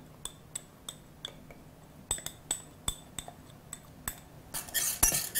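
Light glass clinks, about three a second, from a small glass bowl as thick rice syrup is emptied out of it into a saucepan. Near the end a denser scraping noise starts, a spatula beginning to stir in the pan.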